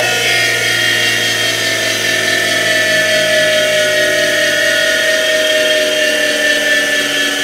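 Bench grinder motor and wheel spinning down after being switched off, a steady whine that slowly falls in pitch.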